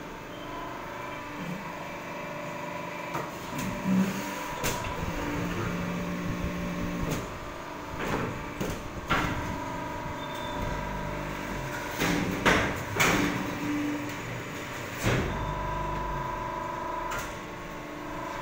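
Hydraulic fly ash brick press running through a pressing cycle: a steady machine hum with a series of metallic clanks and knocks as the press and mould move and a row of freshly formed bricks is pushed out onto the pallet.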